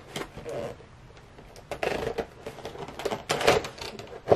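Fingers picking at and peeling the tape and flap of a cardboard toy box: a run of irregular papery clicks and scratches, with louder scraping about two seconds in and again at three and a half seconds.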